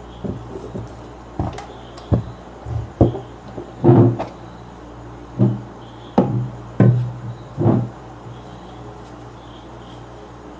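Irregular knocks and clatter, about ten in all, from the V-Guard voltage stabilizer's casing being handled as its top cover is unscrewed and opened, over a steady low hum.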